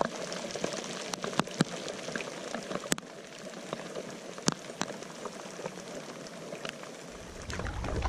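Rain falling on the water around the canoe, an even hiss with scattered sharp ticks of single drops. About seven seconds in, wind starts buffeting the microphone with a low rumble.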